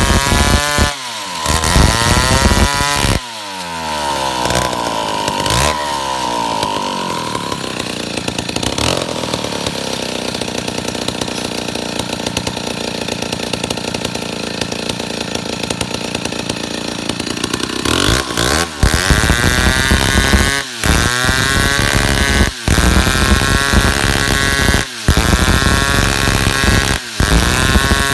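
Stihl two-stroke chainsaw cutting through a eucalyptus log. It revs up and down for the first few seconds, then runs steady under load in the cut for about fourteen seconds, then is revved in repeated bursts about every two seconds.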